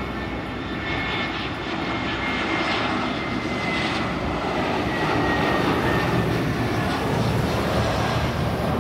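Airbus A320 on final approach with gear down, its jet engines running overhead: a steady jet noise with a thin whine that slowly falls in pitch as the aircraft passes, growing louder in the second half.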